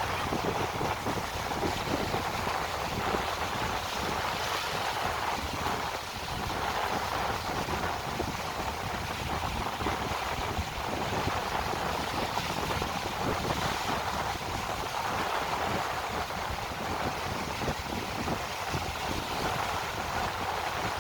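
Sea waves washing in a steady rush, with wind buffeting the microphone in a low, fluttering rumble.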